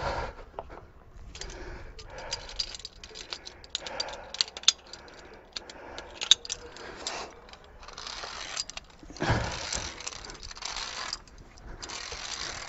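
Via ferrata carabiners and lanyard clinking and scraping on the steel safety cable and rungs as the climber moves, a quick run of metal clicks in the first half, with bouts of rustling in the second half.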